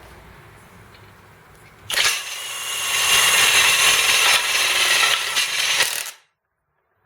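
Power impact driver running for about four seconds, hammering as it spins the lawn mower jack's drive screw to raise the empty lift; it starts abruptly about two seconds in and stops suddenly. The impacts are mushrooming the jack's drive fitting.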